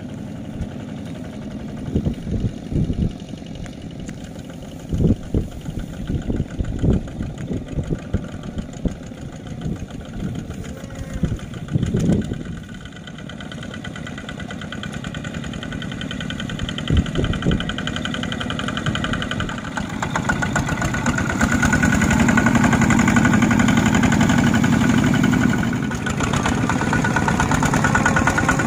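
Single-cylinder diesel engine of a two-wheel walking tractor running steadily as it pulls a trailer across a harvested paddy. There are scattered low thumps in the first half, and the engine gets much louder about twenty seconds in as a tractor runs close by.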